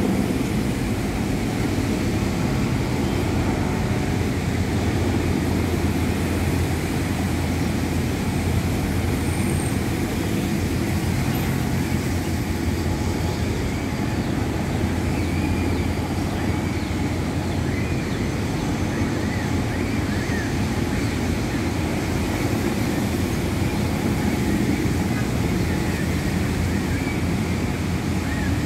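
Steady drone of a formation of helicopters flying overhead at a distance, rotor and engine noise blended into one continuous rumble.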